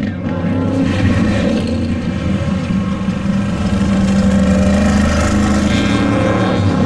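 Off-road race vehicle's engine running at fairly steady revs, growing louder toward the middle.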